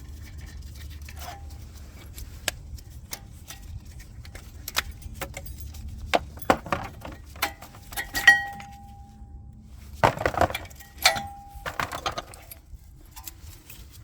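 Metal brake parts being handled during a front brake pad change: scattered clicks and clinks, with two louder clinks that ring briefly, about eight and eleven seconds in.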